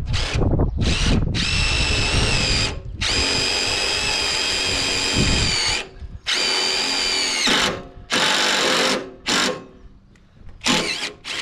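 Cordless drill driving self-drilling, self-tapping screws into the sawmill's metal frame, in a string of runs from a fraction of a second to about three seconds long, with short stops between them. The motor's whine holds at a steady pitch through each run.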